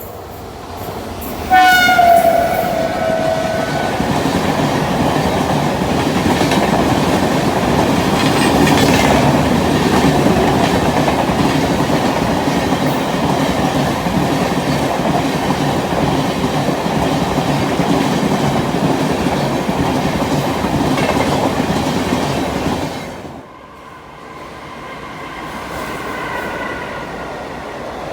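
Indian Railways express train hauled by an electric locomotive passing at speed: the locomotive's horn sounds once as it arrives, dropping slightly in pitch, then the coaches rush and clatter past over the rails for about twenty seconds before the noise falls away sharply near the end.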